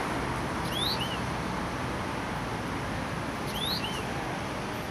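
A small songbird gives two short calls about three seconds apart, each a quick rising whistle followed by a brief lower note, over steady background noise.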